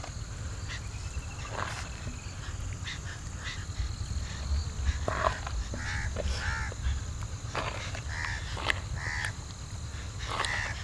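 A crow cawing, about half a dozen short calls from about five seconds in, over a steady low rumble. Scattered sharp, wet clicks come from a hand working thick marinade into a whole chicken in a clay bowl.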